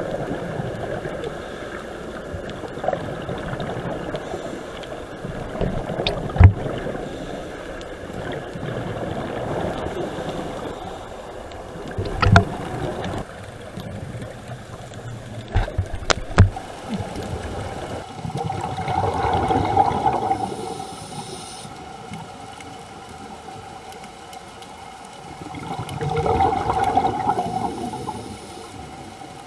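Water sloshing and gurgling close to the microphone, with a few sharp knocks and two slow swelling rushes about seven seconds apart.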